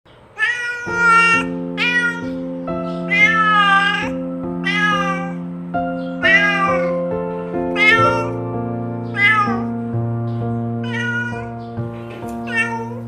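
Kittens mewing again and again, about ten short high-pitched mews, each rising and falling in pitch, over background music of slow held chords.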